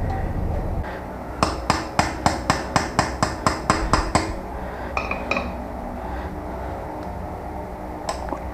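Hand tools working on a BMX's rear brake caliper: a run of about a dozen sharp metallic clicks, about five a second, then two ringing metal clinks, with a few more knocks near the end.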